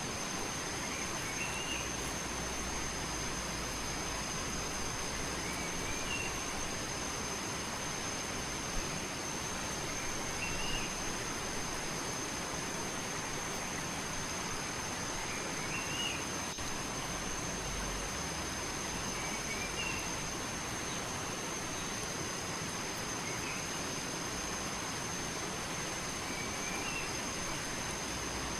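Steady rush of flowing water, like a stream or small waterfall. A steady high whine sits above it, and a short rising chirp comes about every four to five seconds.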